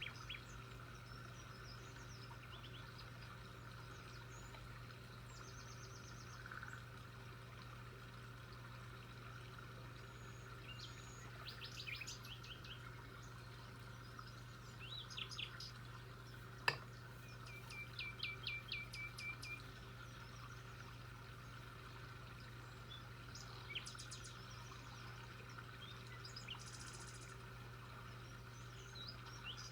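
Birds chirping and calling in short trills and rapid runs of notes, scattered through, over a faint steady hum. A single sharp click about halfway through.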